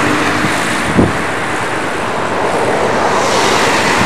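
Long freight train of tank wagons rolling past: a steady rush of wheels on rails, with a single knock about a second in.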